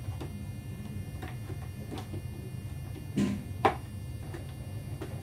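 Short clicks and knocks of the nose section of an Agusta A-109 scale RC helicopter fuselage being handled and pressed into place, a duller knock and then the sharpest, loudest click about three and a half seconds in, over a steady low hum.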